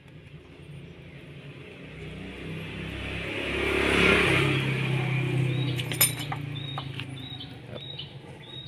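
A motor vehicle passes by: its engine grows louder to a peak about four seconds in, then slowly fades. A sharp click comes about six seconds in, and a bird chirps repeatedly near the end.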